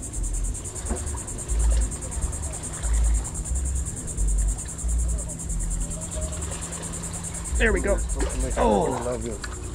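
Insects buzzing steadily at a high pitch, with gusts of wind buffeting the microphone. A couple of short voice sounds come near the end.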